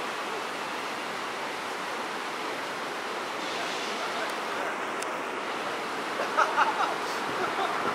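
Steady rushing noise of idling city buses and street traffic, with a few brief, louder sounds about six seconds in.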